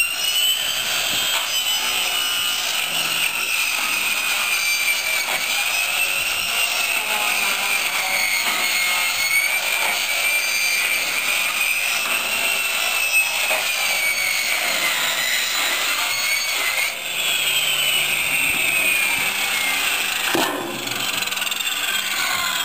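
Corded circular saw with a toothed metal-cutting blade cutting through three stacked sheets of steel roofing: a loud, high screeching whine that wavers up and down in pitch as the cut goes on. About three-quarters of the way through the whine slides down in pitch.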